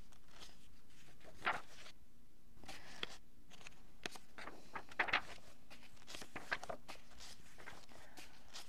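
Quiet room tone with a scattering of soft, irregularly spaced taps and rustles, the clearest about a second and a half in and a pair about five seconds in.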